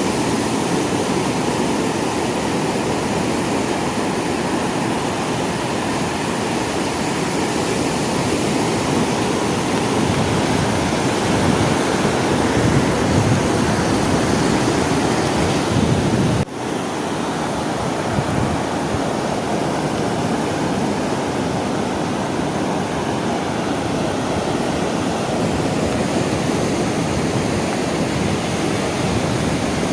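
Sea waves washing on a shore as a steady, continuous rush of surf. There is a momentary drop in the sound just past halfway.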